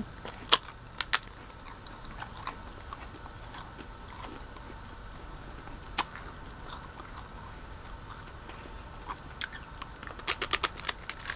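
Crunching as a crisp, empty waffle ice cream cone is bitten and chewed: sharp crunches about half a second and a second in, one near the middle, and a quick run of crunches near the end, with quieter chewing between.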